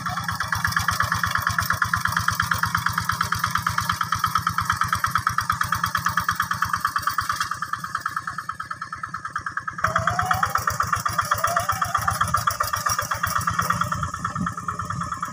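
Quick G600 hand tractor's single-cylinder diesel engine running steadily under load, working a flooded rice paddy, with a fast, even train of firing pulses. The sound jumps louder about ten seconds in.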